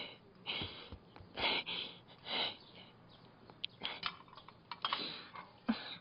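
Handling noises: a few short rustling bursts, then a cluster of light clicks and taps in the second half as a small tin box is handled.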